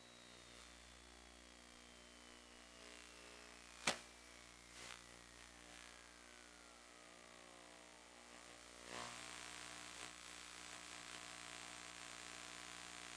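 Near silence: a steady electrical hum and hiss. A faint tone falls slowly in pitch, and there is one sharp click about four seconds in, with softer clicks about a second later and again near nine seconds.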